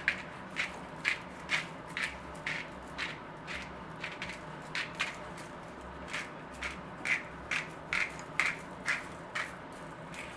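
Seasoning shaken from a spice shaker over raw chicken breasts, a quick gritty rattle about twice a second.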